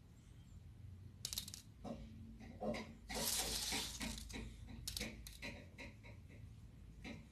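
Sugar sprinkles scattered by hand from a small plastic cup onto a gelatin dessert and its plate: a run of small, sharp clicks, thickening into a brief rustle a little after three seconds in.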